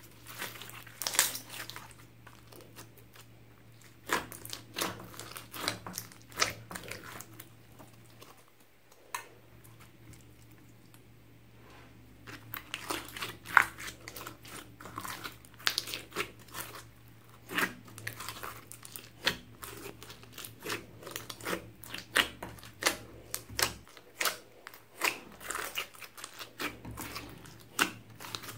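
Slime with foam beads being squeezed and kneaded by hand in a glass dish: irregular wet clicks, pops and crunches, with a quieter stretch of a few seconds about a third of the way in.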